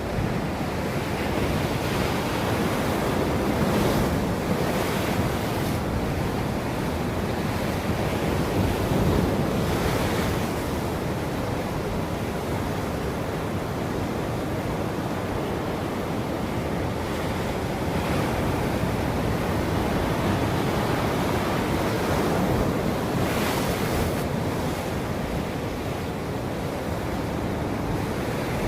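Ocean waves breaking and washing on a shore in a continuous roar, with several brief hissing surges of surf, and wind on the microphone.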